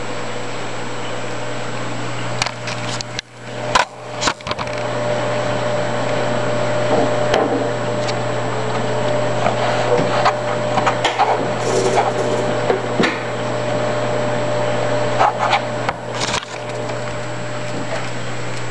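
Steady low hum of aquarium pumps and filtration equipment, with knocks and rubbing from the handheld camera about three to four seconds in and scattered bumps through the second half as it is carried.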